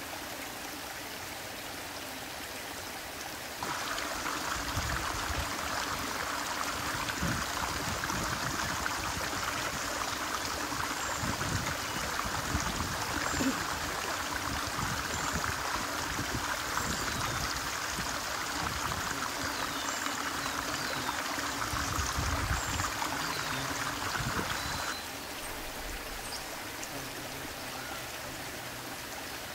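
Shallow stream running over a rock bed, a steady rush of flowing water. From about four seconds in until near the end it is louder and fuller, with a few short high chirps over it.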